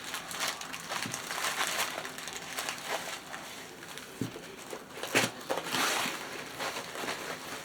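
Plastic packaging of a diamond painting kit crinkling and rustling as it is handled, with scattered small clicks and taps, the loudest about five seconds in.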